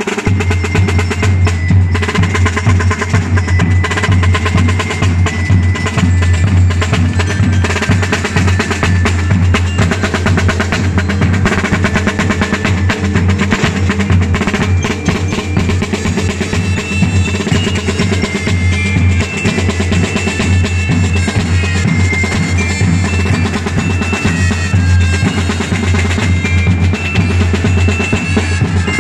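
Street drum and lyre corps playing together: rapid snare drum rolls and beats over a bass drum, with glockenspiels ringing out a melody that comes through more clearly in the second half.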